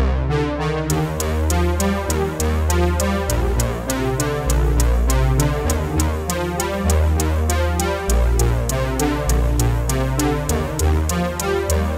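Electronic background music with synthesizer chords, a moving bass line and a steady drum-machine beat; a crisp high-hat pattern comes in about a second in.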